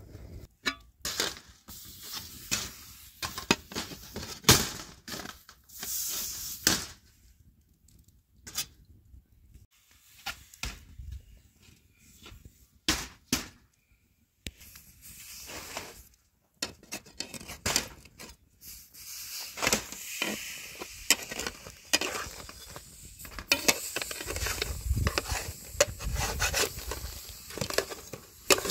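Irregular clinks, knocks and scraping of pots, utensils or tools being handled, in short separate strikes with quiet gaps between them.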